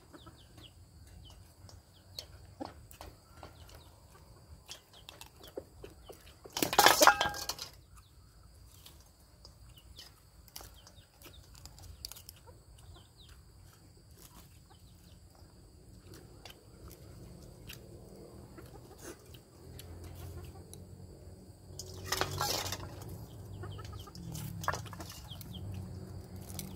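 Domestic chickens calling: two loud calls of about a second each, one about a quarter of the way in and another late on, with softer clucking between.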